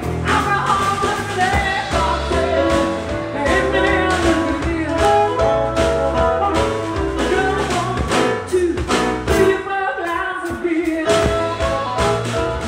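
Band music with a singer, over a steady drum beat and bass.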